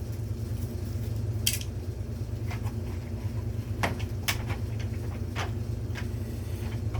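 Scattered light clicks and taps from small parts and packaging being handled, over a steady low hum.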